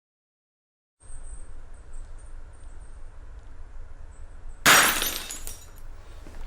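A sudden loud crash of something breaking, near the end, dying away over about a second with small scattered clicks after it, over a steady low hum.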